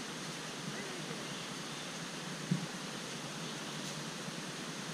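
Steady rushing of a river or waterfall below, an even hiss of moving water. A single thump about two and a half seconds in.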